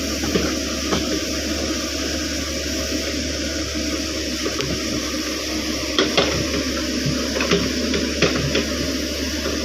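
Caterpillar 307.5 mini excavator running steadily while digging out a wet peat ditch, with sharp knocks and clatters about a second in and several more in the second half.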